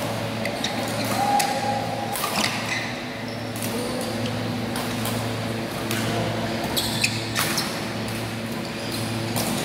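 Badminton rally in a large hall: irregular sharp racket hits on the shuttlecock, a second or more apart, over a steady low hum and the hall's reverberation.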